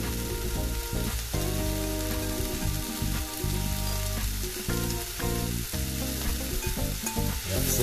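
Vegetables sizzling with a steady hiss in a hot frying pan as finely grated courgette is tipped in onto softened onions, peppers and broccoli and stirred with a spatula.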